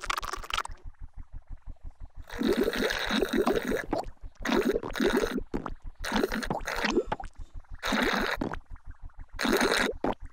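Comic slurping and gurgling of the Tombliboos noisily drinking Pinky Ponk juice from their cups, in about five bursts, with a soft, quick, even low pulse underneath.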